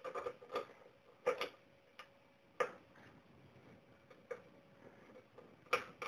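Irregular light plastic clicks and taps as 3D-printed tube guides are pushed into place on a K40 laser cutter's painted sheet-metal tube lid. There are about nine, unevenly spaced, and the sharpest come around a second and a quarter in, about two and a half seconds in, and near the end.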